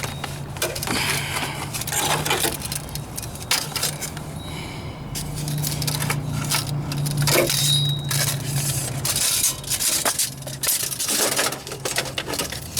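A metal tape measure clicking and scraping against the rusty underside of a floor pan in a run of irregular small metallic ticks and rasps, over a steady low hum.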